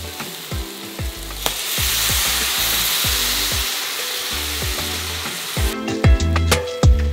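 Water poured into a hot stainless steel pan of sautéed vegetables and chickpeas, sizzling as it hits the pan. The sizzle starts about a second and a half in and stops abruptly near the end, over background music with a steady beat.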